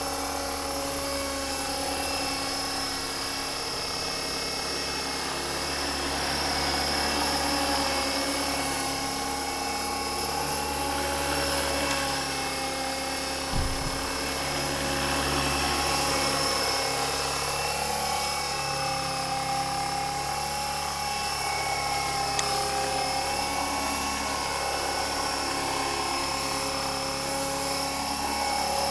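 Align T-REX 450 electric RC helicopter flying low: the steady high whine of its electric motor and gears over the whir of the rotor blades, the pitch drifting slightly as it manoeuvres. A brief low thump about halfway through.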